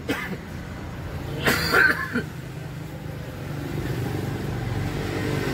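A road vehicle's engine running close by, a steady low hum that grows gradually louder over the second half. A brief loud burst of a person's voice comes about a second and a half in.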